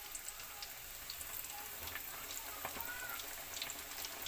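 Flour-coated chicken leg pieces deep-frying in a pan of oil: a steady sizzle dotted with many small crackles and pops, growing busier toward the end.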